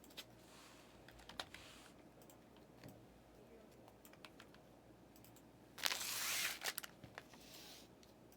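Computer keyboard typing: scattered faint key clicks, with a louder stretch of rapid clatter about six seconds in.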